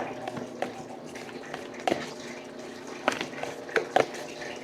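A handful of soft, irregular taps and clicks over a faint steady hum.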